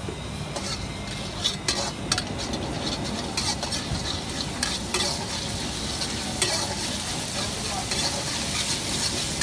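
Oil sizzling in a steel wok while a long steel ladle stirs and scrapes through it, with scattered sharp metal clinks of ladle against wok.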